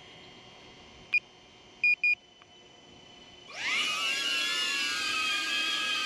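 Three short high electronic beeps, one and then a close pair about a second later; then about three and a half seconds in, the DJI Avata cinewhoop's ducted propellers spin up with a rising whine that settles into a steady, loud multi-tone buzz as the drone lifts off.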